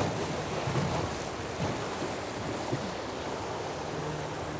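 Fast riffle water of a river rushing around a drifting raft, a steady hiss, with a couple of faint knocks near the middle.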